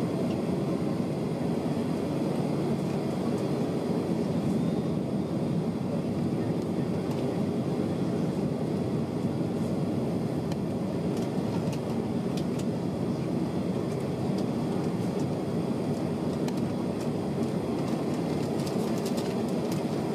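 Steady cabin noise inside a jet airliner taxiing: an even engine hum and rumble, with a few faint clicks about twelve seconds in and again near the end.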